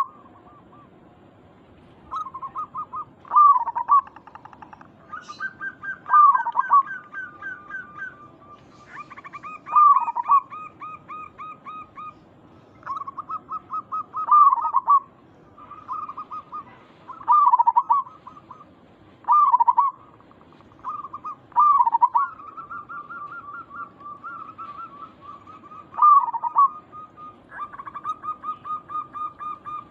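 Zebra doves (perkutut) cooing. Each phrase is a run of quick staccato notes ending in a louder falling coo, repeated every two to four seconds. A second bird's higher, rapid runs of notes overlap them.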